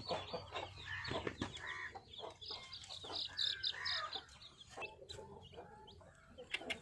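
A Sussex hen clucking among her newly hatched chicks, which are peeping: a busy run of short calls that thins out after about five seconds.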